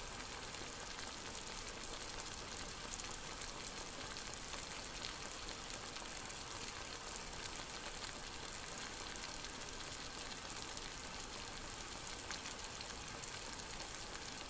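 Cut asparagus cooking in a little liquid in a stainless steel pan: a steady, fine crackling sizzle.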